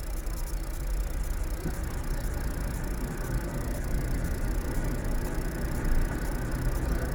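Road traffic: a box truck and then a van drive past, over a steady low rumble. The sound is loudest about six seconds in.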